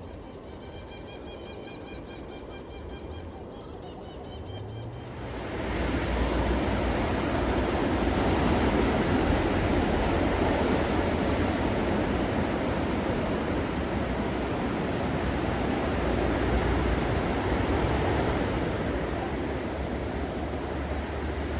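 Ocean surf washing on a beach, a steady rushing noise that grows clearly louder about five seconds in. Faint high wavering tones sound over the quieter opening.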